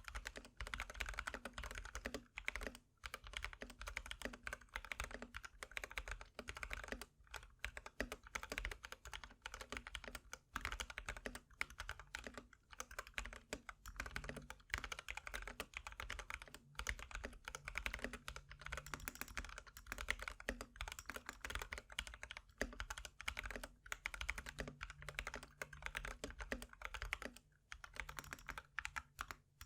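Typing on a GK61X mechanical keyboard with lubed Holy Panda tactile switches, XDA-profile keycaps and O-ring mounting: a fast, steady run of keystrokes broken by a few short pauses.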